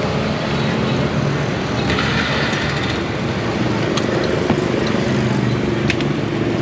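Steady street traffic noise, with motorbike engines running close by, and a few light clicks.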